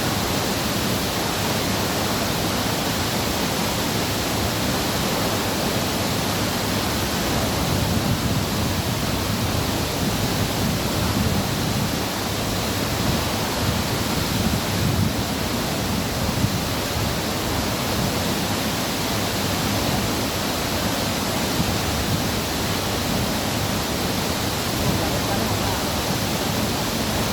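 Waterfall rushing: a steady, dense roar of falling water with no pause.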